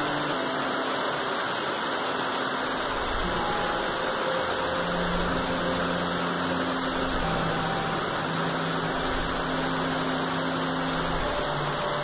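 Steady rain falling on tree foliage: a constant, even hiss with no breaks. Faint held low tones sound underneath.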